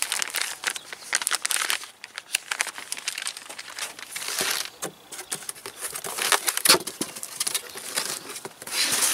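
Packaging crinkling and rustling in irregular bursts, with small clicks, as the header kit's loose parts (bolts, bracket, gasket) are handled.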